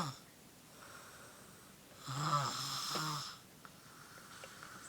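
A person snoring: one pitched, rasping snore about two seconds in, lasting just over a second and breaking into a few pulses. A few faint clicks follow near the end.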